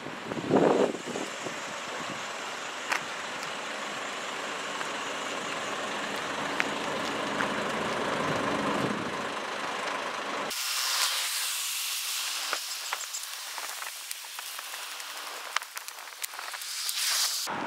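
Road traffic: a vehicle's noise swells and fades over several seconds. About ten seconds in, the sound cuts abruptly to a thinner hiss with the low rumble gone.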